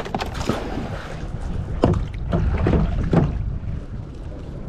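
Water sloshing and lapping against a kayak, with irregular splashes, while wind rumbles on the microphone.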